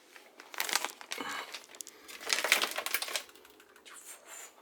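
Packaging crinkling and rustling in two main bursts, with fainter rustles near the end.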